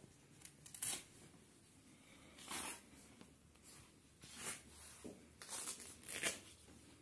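Rustling of a light nylon-type jacket being pulled on and adjusted at the collar: several brief, quiet swishes of fabric.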